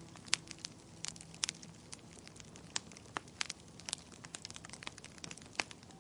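Wood fire crackling in a fireplace: irregular sharp pops and snaps, a few louder than the rest, over a faint hiss.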